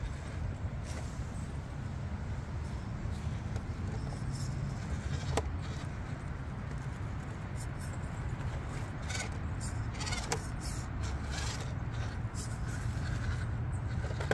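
Small 1/18-scale RC rock crawler with a 370 brushed motor running low and steady as it creeps over wet rocks, with two sharp clicks along the way.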